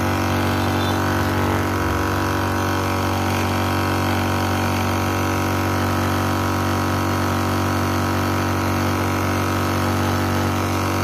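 Aceeagle electric high-pressure PCP air compressor running steadily and smoothly while filling an empty aluminium air bottle, an even hum that holds one pitch throughout.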